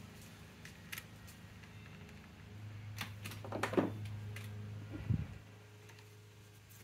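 Scattered light clicks, taps and a short scrape as small tools and battery-terminal hardware are handled, with a screwdriver picked up and set to a battery terminal screw. A low steady hum comes in about two and a half seconds in and stops a little after five seconds.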